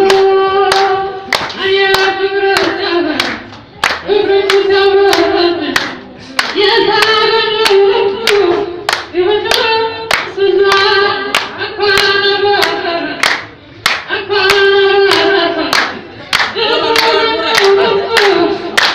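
A single voice singing a song unaccompanied, in long held notes with short breaths between phrases, while people clap along in a steady beat of about two claps a second.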